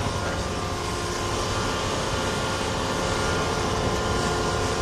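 Steady machinery drone with a low hum and a few steady higher tones, and no distinct knocks or events.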